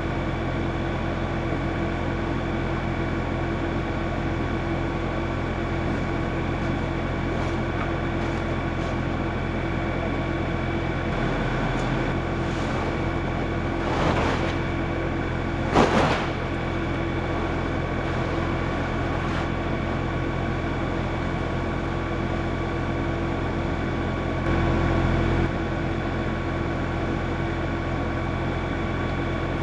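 Tractor engine running steadily. Two brief louder noises come in the middle, the second a sharp knock, and the engine sound swells for about a second near the end.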